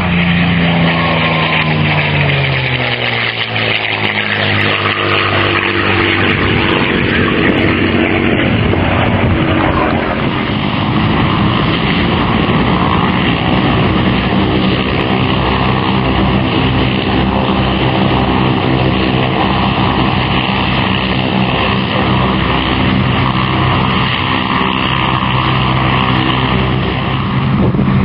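P-51D Mustang's Packard Merlin V-12 engine during a fly-by. Its note drops in pitch over the first few seconds as it passes, then settles into a steady, loud drone.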